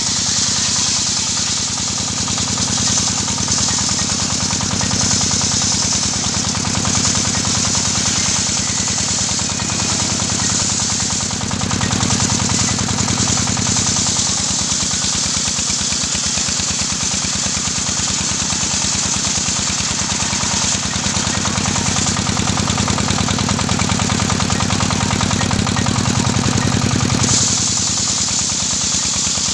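Portable circular sawmill ripping a gmelina (white teak) beam: the stationary diesel engine driving it runs steadily with a fast low chugging, under the hiss of the blade cutting through the wood. The cutting hiss is strong for about the first ten seconds, eases off, and swells again near the end.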